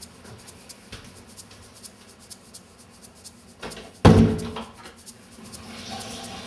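An interior door slams shut about four seconds in: one loud sudden thud with a short low ring.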